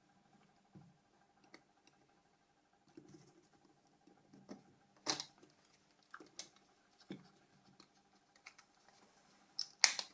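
Small, scattered plastic clicks and scrapes as a Nokia C3-01's body shell and parts are handled and eased apart, with a sharper click about five seconds in and another near the end.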